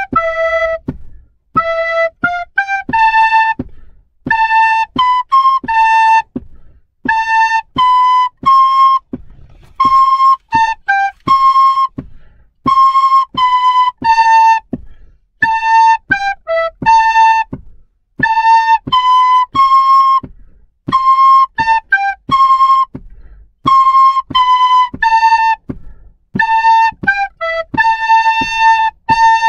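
Two soprano recorders playing a simple melody in unison, note by note in short phrases with brief breath gaps between them.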